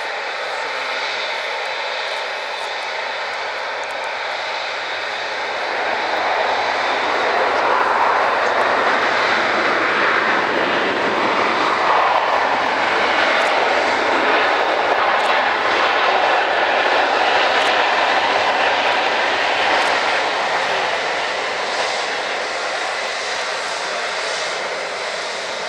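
Airliner's engines running as it passes the airport fence: a loud, steady rushing noise that builds for several seconds, holds at its loudest through the middle, then slowly fades.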